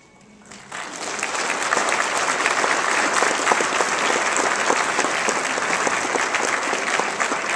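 Audience applause, breaking out under a second in and then running as steady, dense clapping.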